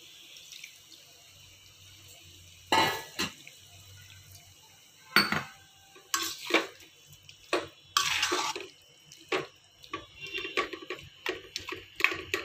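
Water poured from a steel vessel into an aluminium kadai of masala-coated chicken, then a steel spoon stirring it in. The sound is a string of separate splashes, clinks and scrapes of metal on the pan, busier in the last few seconds.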